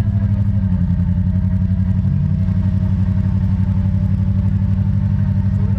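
An off-road vehicle's engine running steadily, with a fast even low pulse and a faint wavering whine above it.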